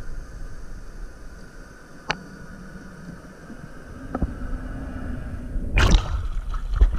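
Muffled underwater ambience, a steady low hiss with two sharp clicks, then water splashing loudly around the camera as it breaks the surface near the end.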